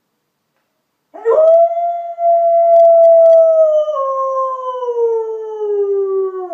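Dog howling: one long howl that starts about a second in, holds a steady pitch, drops a step partway through, then slides slowly lower as it fades.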